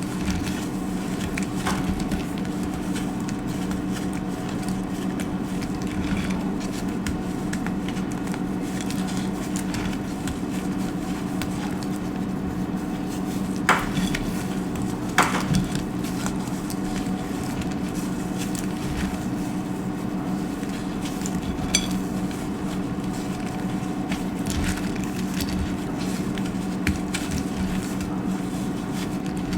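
Dry soap being cut with a blade, giving a few scattered crisp cracks and crunches, the sharpest in the middle, over a steady low hum.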